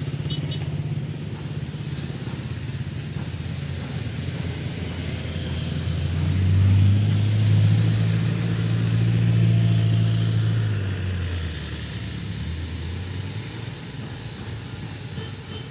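Cars and motorcycles driving slowly over a railway level crossing, their engines running with a steady low hum. It grows louder as a minivan and a motorcycle pass close by about six seconds in, then fades after about eleven seconds.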